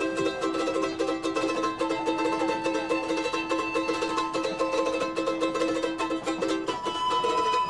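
Music with a plucked string instrument picked fast, playing a melody over steady held notes.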